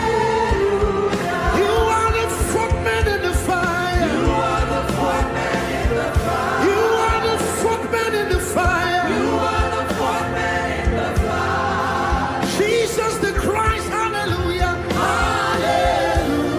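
Live gospel worship music: voices singing over sustained keyboard and bass chords, with a steady drum beat.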